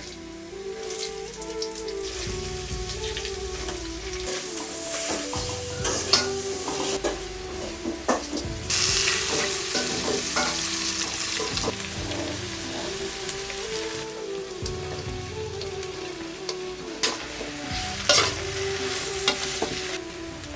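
Food sizzling as it fries in a pan while a utensil stirs it, with occasional sharp clinks of the utensil against the pan. The sizzle is loudest a little before the middle.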